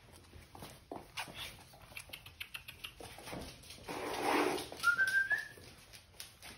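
Dogs' claws clicking on a laminate floor as the dogs walk about. Near the middle comes a breathy rush, and right after it a short, high, rising whine.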